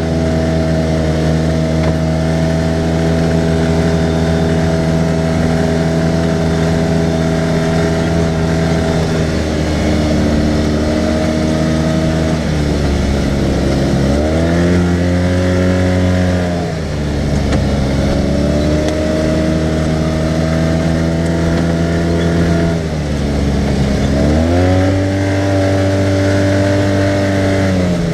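Engine of a 2014 Arctic Cat side-by-side UTV running under throttle on a dirt trail, holding a steady pitch, then easing off and climbing back up twice, about halfway through and again a few seconds before the end.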